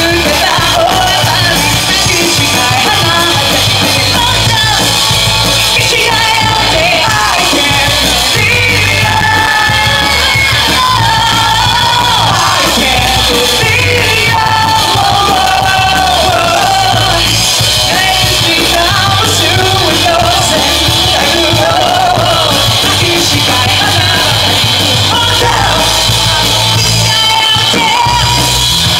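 A live J-rock band playing, a vocalist singing over electric guitar, bass guitar and drums, loud and without a break.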